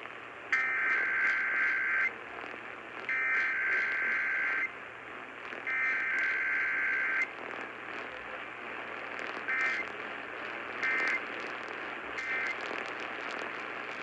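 Emergency Alert System SAME data tones received over an AM radio: three header bursts of about a second and a half each, then three short end-of-message bursts, with static hiss underneath.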